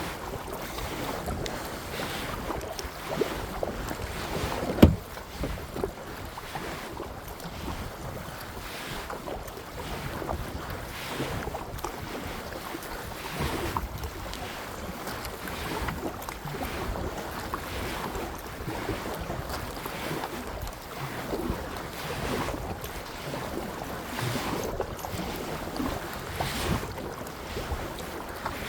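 Kayak paddle strokes splashing in a steady rhythm of about one stroke every second and a quarter, with wind buffeting the microphone. A single sharp knock about five seconds in.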